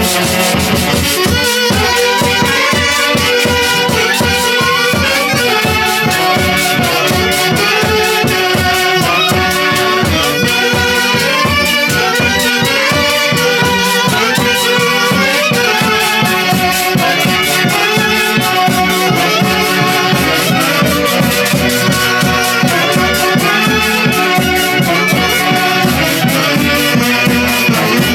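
Andean orquesta típica playing a huaylijía: a folk dance tune with a steady, even beat under the melody.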